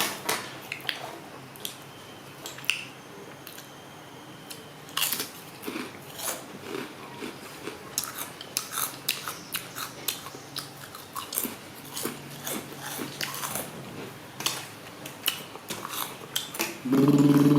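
Close-up eating sounds: a string of irregular crunchy bites and chewing clicks of candy. Near the end a loud, steady buzzing hum starts abruptly.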